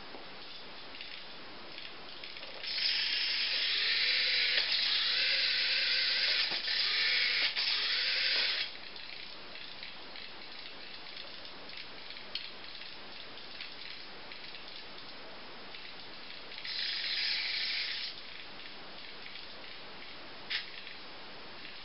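Small electric drive motor and gears of a homemade radio-controlled model tractor running in two spells, one of about six seconds from about three seconds in and a shorter one later, over a steady hiss. A sharp click comes near the end.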